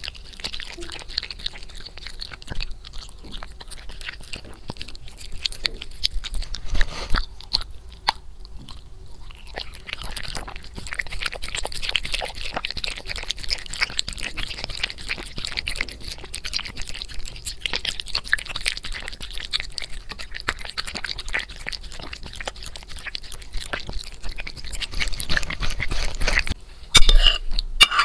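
Toy poodle eating kibble from a plate, irregular crunching and chewing picked up very close by a microphone clipped to the plate. About a second before the end, a metal spoon clinks and scrapes on the plate.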